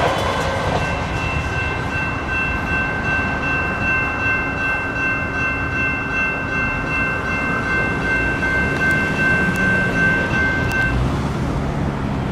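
Electronic crossing bells (GS Type 2 E-Bells) ringing steadily while the crossing gates rise after the light rail train has passed; the bells stop about eleven seconds in. Road and train noise runs underneath, and a road vehicle's engine comes up near the end.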